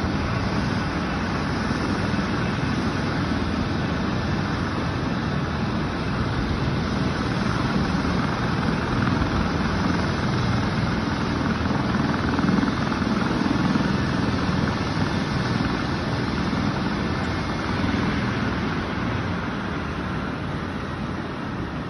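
Rescue helicopter running on the ground after landing: a steady engine-and-rotor noise with a faint thin high tone over it, getting somewhat quieter near the end.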